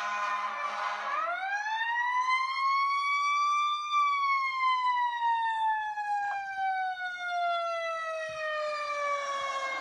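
Siren winding up: a single wailing tone rises in pitch for about three seconds, then slowly falls for the next six. In the first second another siren tone is already falling away.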